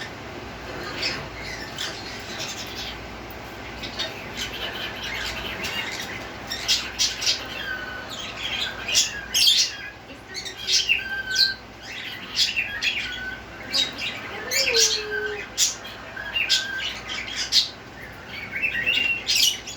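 A pet bird making odd noises: a string of short chirps, clicks and squawks, sparse at first and much busier from about six seconds in.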